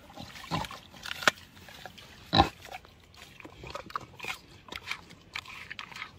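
Pig bobbing for apples in a bowl of water: irregular wet chewing, smacking and snuffling, with one louder noise about two and a half seconds in.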